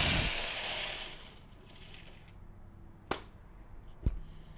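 Hotel-room curtains being pulled open with a swishing rush that fades over about a second and a half, followed by two sharp clicks about a second apart.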